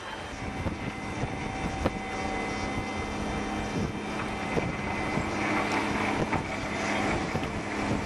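An engine running steadily, its hum slowly growing louder.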